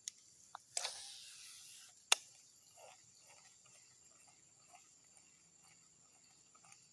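A fishing cast: a rushing hiss of line running off the reel for a little over a second, ended by a sharp click. Insects chirr steadily throughout, with faint short calls repeating every half second or so afterwards.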